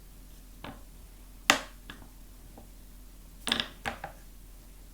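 Sharp clicks and taps of plastic Play-Doh toy pieces being handled: one loud click about a second and a half in, then a quick cluster of clicks about three and a half seconds in.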